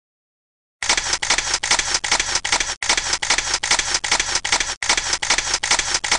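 Camera shutter firing in rapid burst mode: a fast, even run of clicks, about five a second, starting about a second in, with a short break twice as the sound effect loops.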